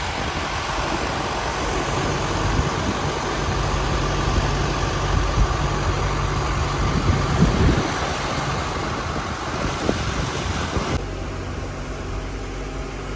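Motor yacht under way: rushing wake water and wind over a steady engine drone. About eleven seconds in it cuts to a quieter, even hum at the helm.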